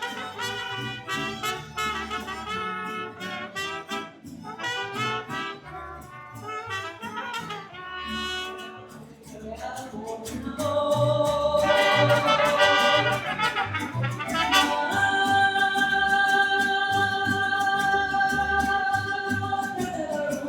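Music with brass and singing: quick runs of short notes, then louder, long held notes from about halfway through.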